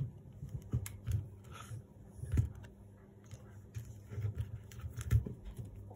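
Scattered small clicks and light taps from handling a soldering iron, wire and a coax socket on a wooden worktop, with a few soft thumps, about a second in, near the middle and near the end.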